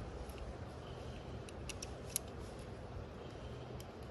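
Steady rushing of a running creek, with a few light, sharp clicks about a second and a half to two seconds in from handling the rifle and its .22 LR cartridges at the shooting bench.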